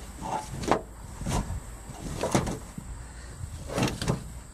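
New molded automotive carpet being lifted, pulled and shifted over a car's floor pan, making a series of about six short rustling swishes and soft thumps.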